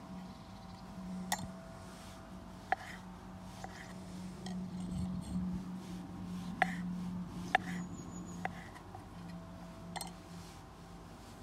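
Kitchen knife slicing olives on a wooden chopping board, the blade knocking sharply on the board about six times at irregular intervals, over a steady low hum.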